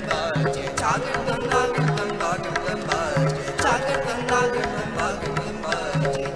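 Instrumental kirtan music: a dilruba plays a gliding, wavering melody over a steady harmonium drone, while a tabla keeps time with regular deep bass strokes.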